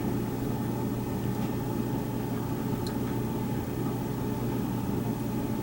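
A steady low hum with an even hiss, like a fan or small motor running, with one faint tick about three seconds in. The soldering gives no distinct sound of its own.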